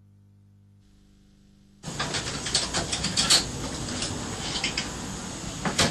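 A brief stretch of near silence with a faint low hum, then a run of light clicks and knocks, the loudest about three seconds in and another near the end, like objects being handled and set down.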